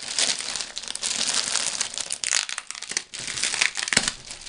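Clear plastic wrapping crinkling and crackling as hands pull it off a packaged bag, with a sharper crackle near the end.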